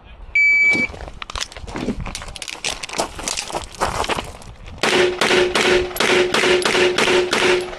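Shot-timer start beep, then a fast series of handgun shots. From about five seconds in, the shots come louder at a steady pace of roughly three a second, each with a short ringing tone.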